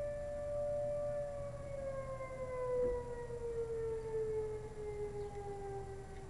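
Outdoor civil-defense warning siren being tested, a model the uploader likens to a Thunderbolt. It holds a steady tone, then from about a second in slowly winds down in pitch as it is shut off at the end of the test.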